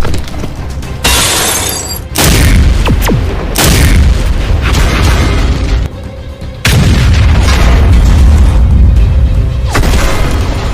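Tank-battle sound effects: a series of sudden booming blasts like cannon fire and explosions, about five in all, each trailing off into a deep rumble, over background music.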